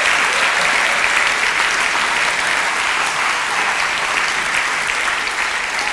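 Theatre audience applauding: dense, steady clapping from a large crowd, easing off slightly near the end.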